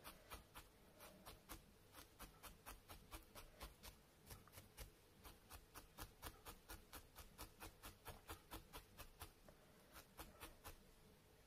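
Felting needle stabbing repeatedly through wool into a felting pad: faint, even pokes about four a second, stopping near the end.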